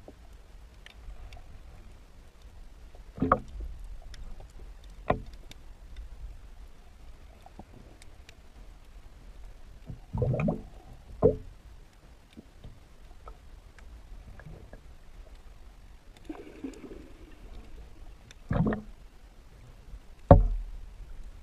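Underwater sound recorded by the filming camera: a low steady rumble with faint scattered clicks, broken by about six dull thumps and knocks, the loudest near the end.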